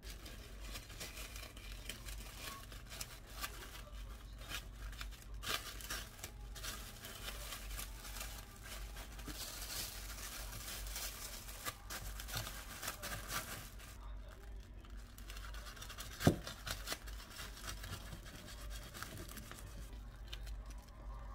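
Thin clear plastic wrap crinkling and rustling as it is pulled and pressed tightly around a tall sandwich by hand. About sixteen seconds in there is a single sharp knock, the loudest sound.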